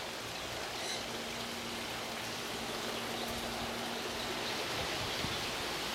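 Steady rushing hiss, like running or spraying water, with a faint low hum through the first four seconds.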